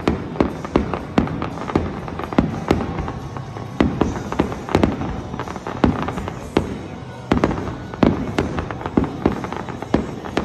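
Aerial fireworks shells bursting in quick succession: sharp bangs with echoing tails and crackle, about two a second.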